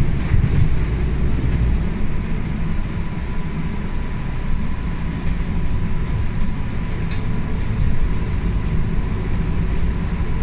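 MAN A95 Euro 6 double-decker bus with ZF EcoLife gearbox driving along, heard from inside the passenger cabin: a steady low drone of engine, drivetrain and road noise, with a thin steady whine joining about two seconds in.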